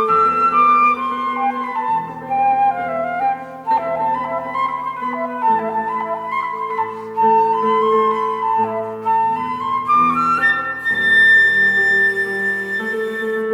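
Two flutes playing a slow duet: one carries a winding melody while the other holds long, steady low notes beneath it. Near the end the line climbs to a long high held note.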